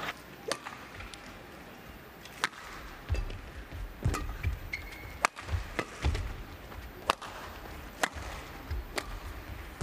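Badminton rally: sharp racket strikes on a shuttlecock about once a second, with players' footfalls thudding on the court between them.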